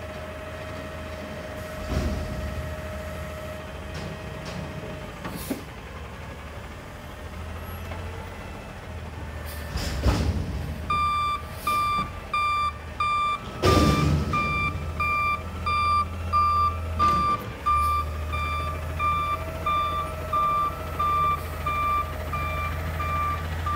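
Wayne front-loader garbage truck running, with a steady hydraulic whine for the first few seconds as the forks lower the emptied container, then several loud clunks as it is set down. From about halfway through, the reversing alarm beeps about twice a second over the engine as the truck backs away.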